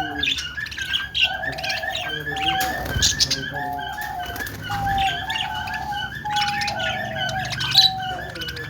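Budgies chirping and chattering, with quick sharp chirps over a short buzzy note that repeats about once a second.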